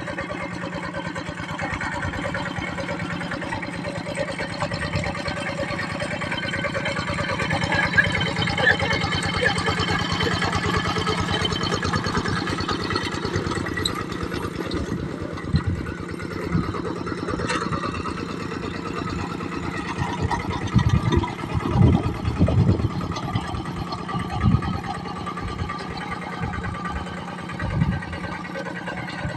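Kubota diesel engine of a tractor running steadily under load while tilling a deep field. A few heavier low thumps come in the second half.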